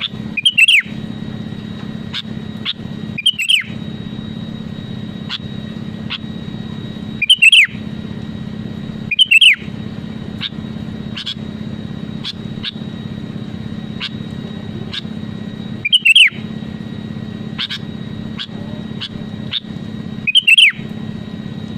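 Sooty-headed bulbul (kutilang) giving short, loud calls, about six spaced a few seconds apart, each a quick down-curving note. A steady low hum runs underneath.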